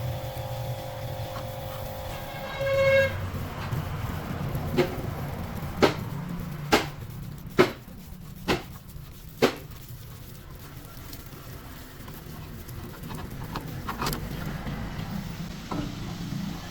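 A series of six sharp, ringing metallic knocks about a second apart, over a steady low mechanical hum, with a brief pitched toot shortly before them.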